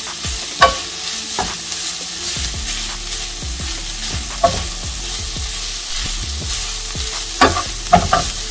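Ground chicken and vegetables sizzling in a skillet while a wooden spoon stirs and scrapes them around the pan, with a few sharp knocks of the spoon against the pan.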